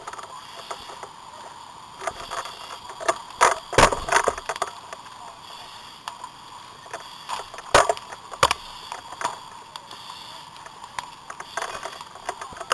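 Irregular knocks, thumps and clatter over a steady hiss, with the loudest cluster a little under four seconds in and a sharp knock near eight seconds.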